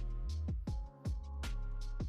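Background electronic music with a heavy bass line and a steady drum beat.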